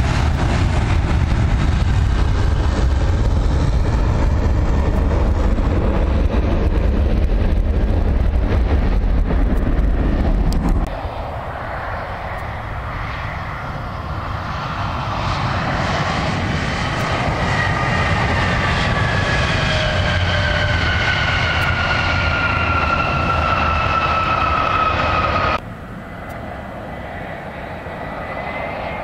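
Jet airliner engines: a loud low rumble for about eleven seconds that cuts off suddenly, then a quieter passing jet whose engine whine falls slowly in pitch, cut off abruptly near the end.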